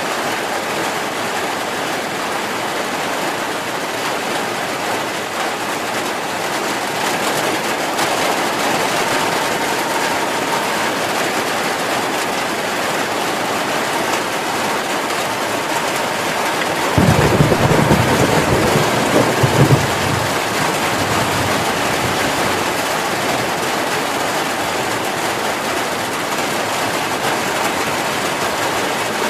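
Heavy rain falling steadily. A little past halfway, a rumble of thunder lasts about three seconds and is the loudest thing in it.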